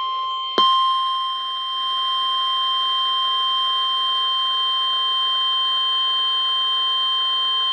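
Emergency alert attention tone: a steady, high-pitched tone of two notes sounding together, stepping up in level about half a second in. It signals that a severe thunderstorm warning follows.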